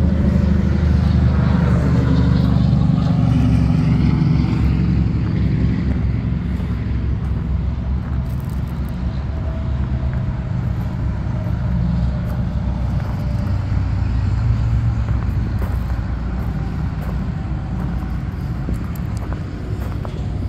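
A motor vehicle engine running steadily nearby, a low droning rumble that is loudest in the first few seconds and then settles a little quieter.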